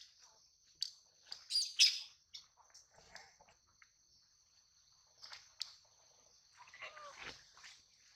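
Sharp, high-pitched animal chirps and squeaks, loudest in a cluster about two seconds in, with more curving calls about seven seconds in, over a steady high insect buzz.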